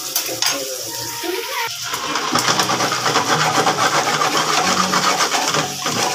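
Raw potato sticks deep-frying in oil in a wok: a dense sizzle with fine crackling that grows louder about two seconds in. The fries still carry ice, so water is boiling off into the hot oil.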